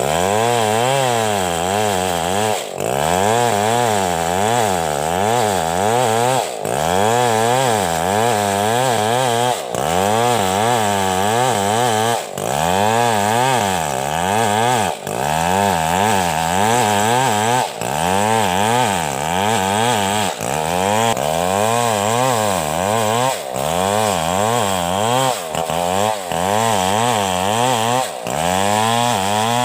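Two-stroke chainsaw running at high revs while cutting a coconut palm trunk. Its pitch wavers up and down as it bogs and frees in the cut, with a brief drop every two to three seconds.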